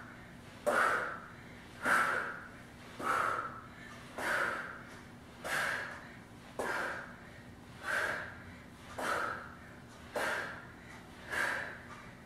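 A woman's hard, rhythmic breathing from exertion, one sharp breath with each rep of a floor back exercise, about one every 1.2 seconds, ten in all.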